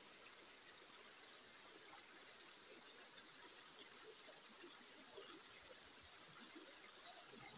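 A steady, high-pitched insect chorus.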